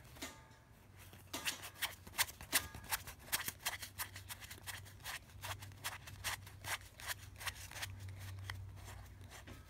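Bicycle Rider Back playing cards handled as the deck is cut and split into packets: an irregular run of sharp card clicks and snaps, several a second.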